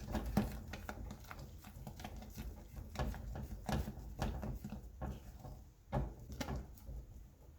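A utensil working thick, buttery mashed potato in a saucepan: irregular soft knocks, clicks and squelches as the mash is stirred and scraped.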